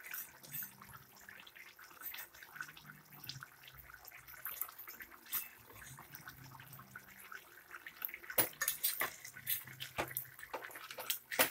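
Chicken gravy bubbling and popping as it boils in an open pressure cooker, with a few sharper clicks of the steel ladle against the pot near the end as it is stirred.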